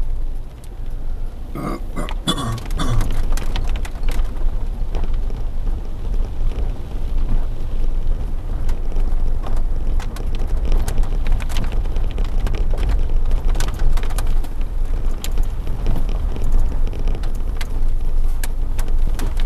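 Low rumble of a vehicle driving slowly, heard from inside through a dashcam, with scattered ticks and crackles as it rolls from wet pavement onto a gravel road. A short wavering creak sounds about two seconds in.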